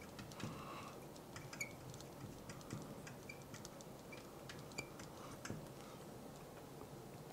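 Marker pen writing on a glass lightboard: faint scattered ticks and short squeaks as the tip strokes across the glass.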